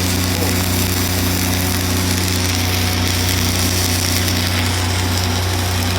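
Welding-shop machinery running: a steady low hum with a continuous rough hiss over it.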